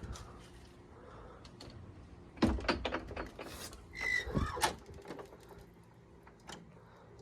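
Garden gate on a hydraulic door closer being opened and swinging shut: clicks and knocks from about two and a half seconds in, a short high squeak from the gate about four seconds in, then a couple of thumps.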